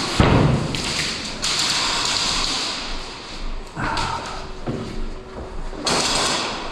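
Thuds and taps mixed with stretches of rustling noise from airsoft play, with a sharp knock just after the start.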